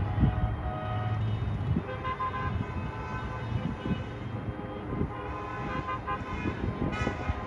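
Many car and truck horns honking at once at different pitches, held and overlapping, over a steady low rumble of traffic.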